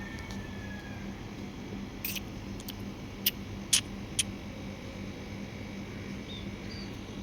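A few short, sharp clicks, three of them loud, coming a little under half a second apart about three to four seconds in, over a steady low hum.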